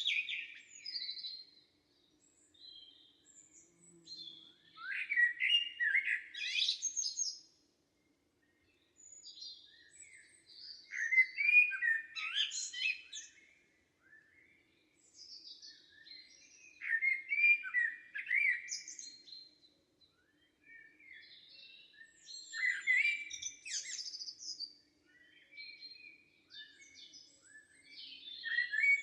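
Songbirds singing in a summer forest. Short warbling phrases of song come every five or six seconds, with quiet pauses between them.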